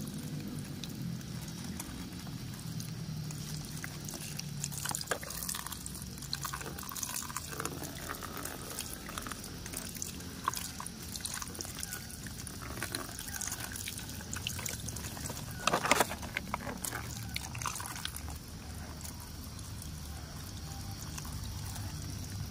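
A thin stream of water pouring over a plastic toy truck and splashing into shallow water below, with scattered small clicks and knocks as the toy is handled. One sharper knock comes about two-thirds of the way through.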